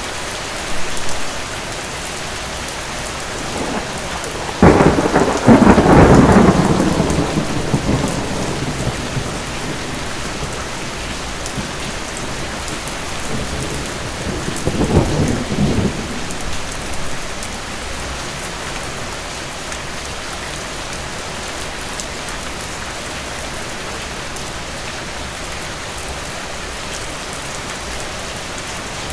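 Steady heavy rain with thunder. About five seconds in comes a sudden loud thunderclap that rumbles away over several seconds, and a weaker roll of thunder follows near the middle.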